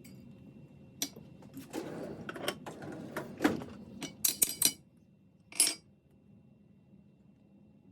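Small metal parts clinking and tapping together in a quick, irregular series of sharp clicks, with a last separate clink a couple of seconds later.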